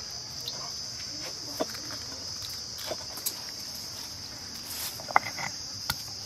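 Steady high chirring of crickets, with a few scattered light knocks and clicks as ginger and dried red chillies are handled on a stone grinding slab, the sharpest knock about five seconds in.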